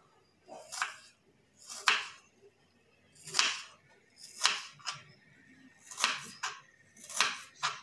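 Kitchen knife chopping firm watermelon rind into small dice on a wooden cutting board: about nine crisp strokes through the rind onto the board, roughly one a second, some in quick pairs.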